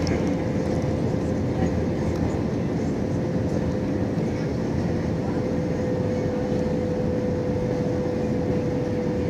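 Jet airliner cabin noise in flight: the steady rumble of the engines and rushing air, with a steady droning tone running through it.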